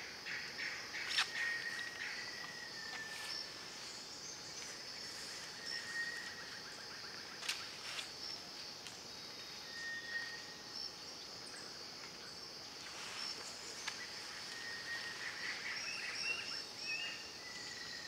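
Steady high-pitched drone of insects, with short whistled bird notes every few seconds and a cluster of chirps near the end. A few sharp clicks stand out, the loudest about a second in and another about seven seconds in.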